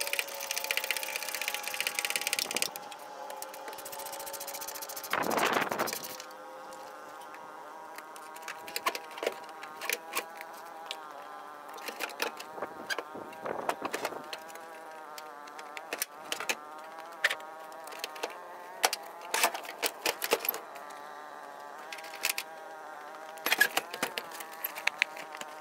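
A flying insect buzzing close by, its pitch wavering, over scattered sharp clicks and knocks, with a louder scraping thump about five seconds in, as the truck's bench seat is worked loose and lifted out of the cab.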